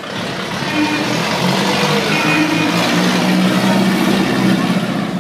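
Vintage open-top car's engine running as it drives slowly past close by, growing louder over the first couple of seconds, with spectators clapping.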